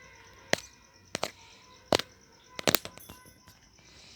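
A handful of sharp, short clicks or taps, some in quick pairs, over a faint steady background.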